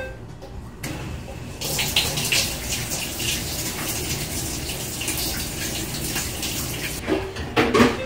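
Water rushing into a Maytag Commercial Technology top-load washer through its OXI dispenser inlet valve, opened in the diagnostic component test: the flow starts about a second in, grows stronger shortly after, and stops about a second before the end.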